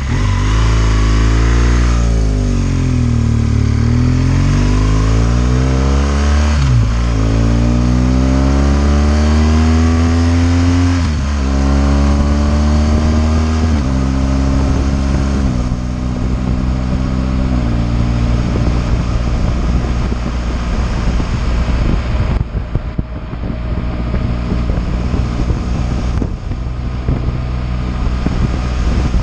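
BMW R 1200 GS boxer-twin motorcycle engine slowing, then pulling away with its pitch rising and dropping sharply at gear changes. It then settles into a steady cruise, where wind noise rushing over the microphone takes over.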